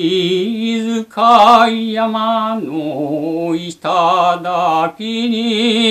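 Unaccompanied solo male voice chanting shigin, the Japanese recitation of a classical Chinese-style poem. He holds long drawn-out vowels with a wide, wavering vibrato, in four phrases separated by short breaths.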